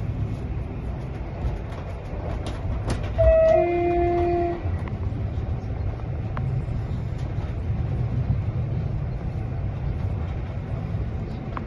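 Express train running with a steady low rumble heard from inside the carriage. About three seconds in, the train's horn sounds for a little over a second, stepping up in pitch partway through.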